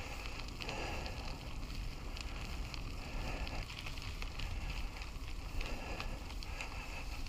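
Mountain bike rolling along a trail: a steady tyre rumble with scattered small clicks and rattles from the bike.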